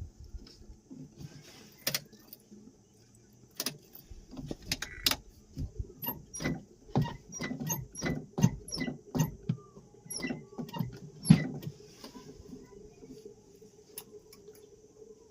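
Auto-rickshaw rattling and knocking as it rides over a rough, broken road, with a run of irregular sharp knocks through the middle over a faint steady running hum.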